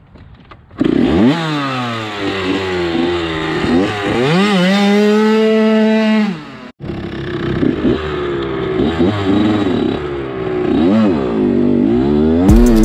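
Small two-stroke dirt bike engines revving and riding off, their pitch rising and falling over and over with the throttle, with one high note held for a couple of seconds in the middle. The sound starts about a second in and breaks off for an instant just past the middle.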